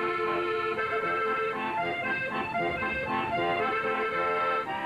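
Accordion being played: a melody of short notes over held chords.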